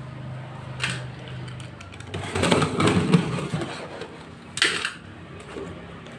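Corrugated cardboard box being handled and shifted on a tile floor: rustling and scraping, with a short sharp scrape about a second in, a busier stretch of rustling and knocking in the middle, and a louder scrape near the end.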